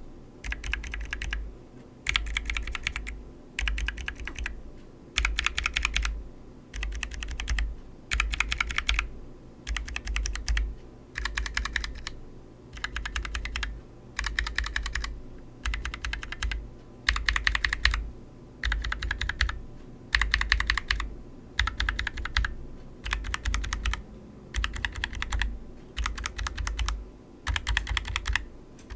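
Typing on a mechanical keyboard sampler board of lubed and unlubed linear and tactile switches: quick runs of keystrokes about a second long, separated by short pauses, about fourteen runs in all.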